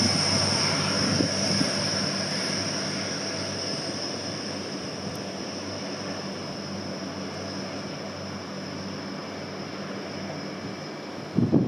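Hull Trains Class 180 'Adelante' diesel multiple unit pulling away under power, its diesel engines running with a steady high whine, fading steadily as it draws away. A short burst of low buffeting comes right at the end.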